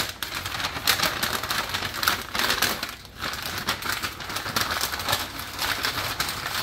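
Pink butcher paper crinkling and rustling as it is folded and tucked around a brisket by hand, with a brief lull about three seconds in.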